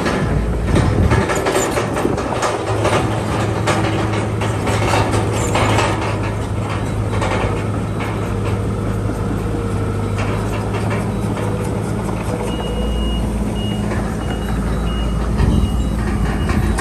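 Heavy diesel earthmoving machinery running steadily, with metal clanking in the first several seconds. From about three-quarters of the way in, a reversing alarm beeps repeatedly.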